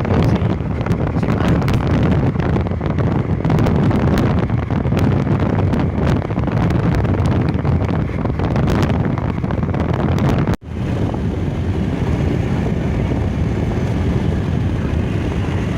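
Loud wind rumbling on the microphone, with crackling through the first part; the sound cuts out sharply for an instant about ten and a half seconds in and then carries on smoother.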